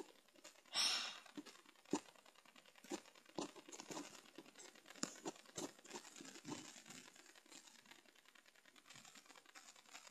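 Faint, irregular clicks and rustles of a phone being handled close to its microphone against bedding and clothing, with a short breathy hiss about a second in.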